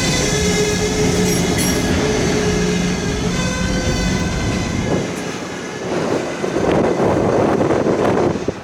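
Freight cars of a long freight train rolling past, with a steady squealing tone for the first five seconds or so. After that it turns to a rougher rumble and clatter of wheels on rail, with wind on the microphone.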